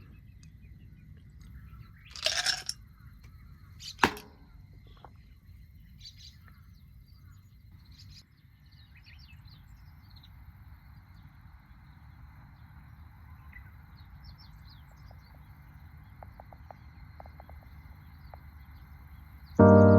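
Quiet outdoor ambience with scattered faint bird chirps, broken by a short loud rustle about two seconds in and a sharp knock about four seconds in; piano music comes in right at the end.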